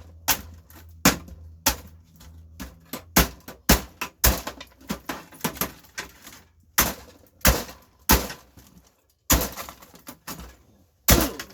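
Hammer blows on an old cassette deck stereo: a long series of sharp, irregular strikes, about one to two a second, each ringing briefly as the casing is smashed open.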